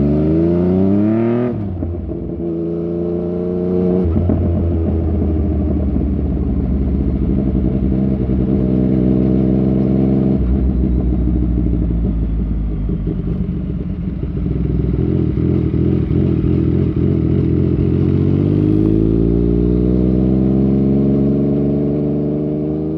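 Yamaha MT-09 Tracer's 847 cc three-cylinder engine through a Fuse Racing aftermarket exhaust, under way. It revs up with two sharp drops in pitch in the first four seconds, runs steady through the middle, and revs up again near the end.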